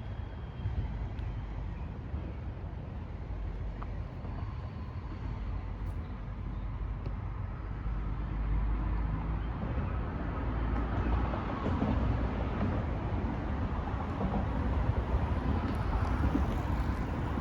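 Steady rumble of road traffic, growing louder about halfway through.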